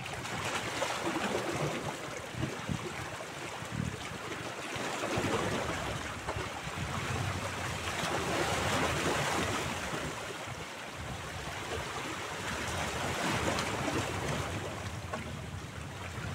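Small sea waves washing and splashing against shoreline rocks, the rush swelling and easing about every four seconds.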